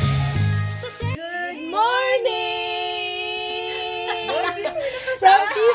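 Music with a bass line that cuts off about a second in. A woman's singing voice then slides up and holds one long note, with more sung or spoken voice near the end.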